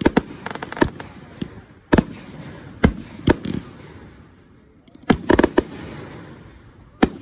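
Aerial fireworks bursting overhead: sharp bangs one after another, with a quick cluster of several bangs about five seconds in and a single bang near the end, over a fading crackle.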